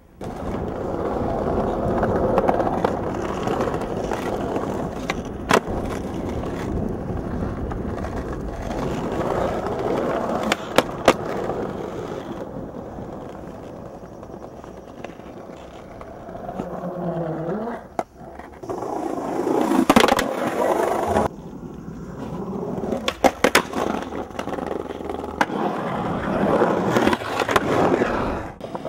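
Skateboard wheels rolling on pavement and concrete, broken several times by sharp clacks of the board popping and landing.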